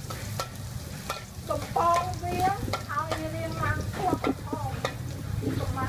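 Metal spatula stirring and scraping around a steel wok, with repeated clinks and short squeaky scrapes, while chopped food fries and sizzles in the hot oil. A steady low rumble runs underneath.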